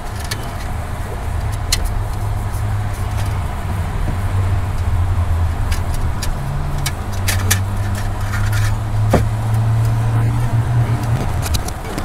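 A steady low motor hum, shifting slightly in pitch, with scattered light clicks and taps; the hum stops about a second before the end.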